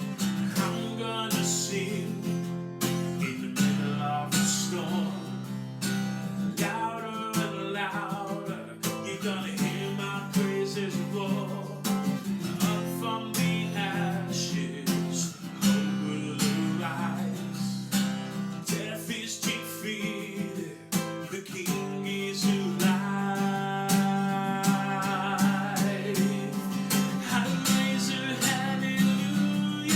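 Music led by a strummed acoustic guitar, playing steadily.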